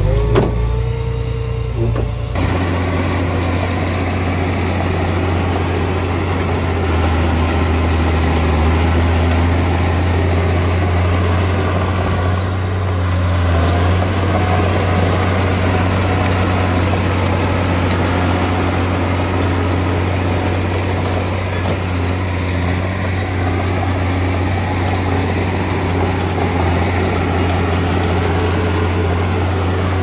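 Heavy diesel engine of earth-moving machinery running steadily with a deep, even hum. The sound changes abruptly about two seconds in, then holds steady.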